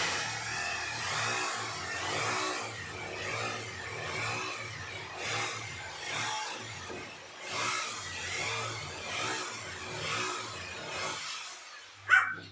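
Electric drilling machine running, its whine swelling and fading about once a second, until it stops about 11 seconds in. A single short sharp sound follows near the end.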